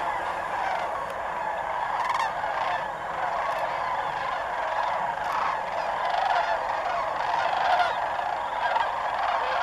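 A large flock of sandhill cranes calling in flight: a continuous chorus of many overlapping calls.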